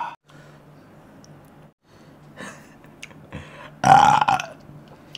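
One short, loud, burp-like vocal sound from a man about four seconds in, over quiet room tone with a steady low hum.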